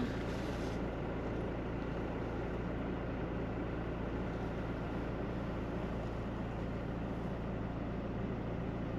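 Toyota Hilux pickup's engine running steadily at idle, heard from inside the cab as an even low hum.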